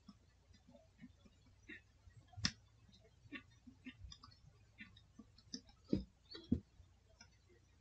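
Faint, irregular clicks and taps of a stylus writing on a tablet, with a few louder knocks about two and a half seconds and six seconds in.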